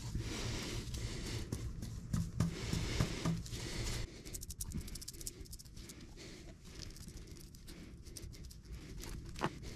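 Faint patting and scratching of a resin-wet chip brush stippling fiberglass mat into a side skirt mold, in many small quick strokes. A low steady hum sits underneath and stops about four seconds in.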